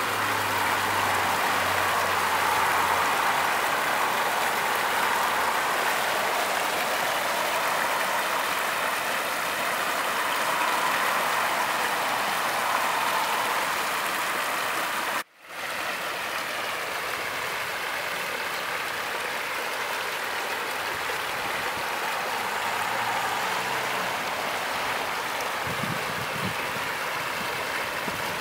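Floodwater rushing out of a concrete storm-drain outlet and churning over rocks, a steady rush of water. The sound cuts out for a moment about halfway through, then the rushing carries on, with a faint low hum in the first few seconds.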